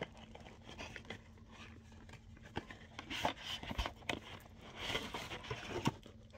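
Cardboard product box being handled and opened, with scattered taps and rustles of cardboard and plastic wrapping as the contents are pulled out.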